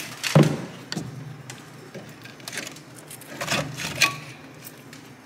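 Rusted front brake caliper of a Volvo 240 being pried and worked off the brake rotor by hand: a sharp metal knock about half a second in, then scattered clunks and scrapes of metal on metal.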